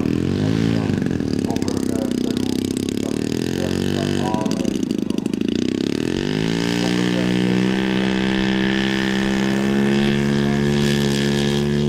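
DLE 85cc two-stroke twin gas engine of a 1:3 scale RC Fokker D.VII biplane, running at low throttle with two short blips up and back down in pitch. About halfway through it opens up, rising to full throttle and holding at high revs for the takeoff run.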